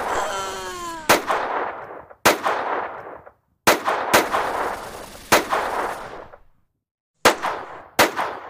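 Edited-in gunshot sound effects: seven single shots spaced about a second apart, each with an echoing tail, with a short falling wail just after the start.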